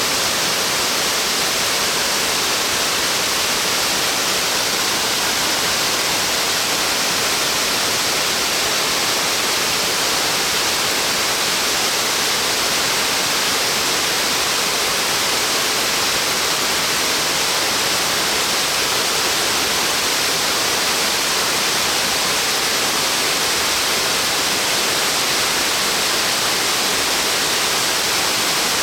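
Steady, loud rush of a tall waterfall, water falling a long way in many spreading strands onto rock, an unbroken hiss with most of its energy in the upper middle and treble.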